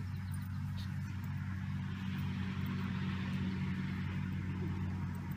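Steady low mechanical hum, like an engine or motor running, with a faint hiss over it that swells a little in the middle.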